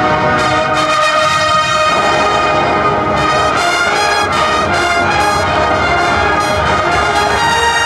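A 700-piece massed band playing loudly, its brass holding full chords, with sharp percussion strikes in two runs.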